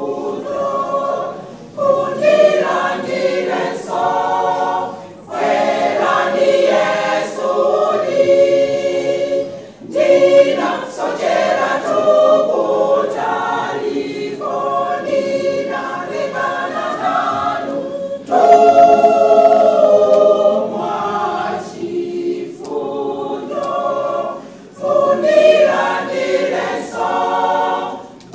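Women's choir singing a Chichewa hymn a cappella in several parts, in phrases separated by brief breaths.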